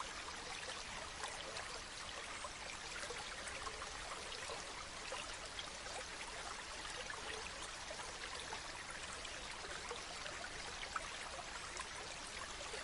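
Running water trickling steadily, with many small splashing ticks.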